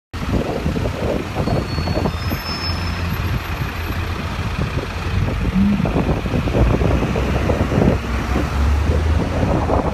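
Street traffic: engines of cars, black cabs and a coach idling and creeping along in a queue, a steady low rumble.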